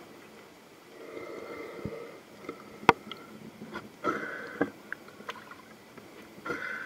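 Underwater pond sounds picked up by a submerged camera: a few short buzzing stretches and scattered sharp clicks, the loudest click about three seconds in.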